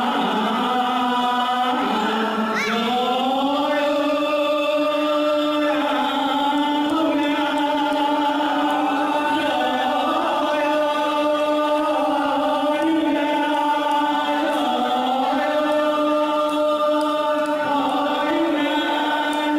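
A group of men chanting a devotional gayan-bayan song in unison, holding long notes that slide slowly from one pitch to the next.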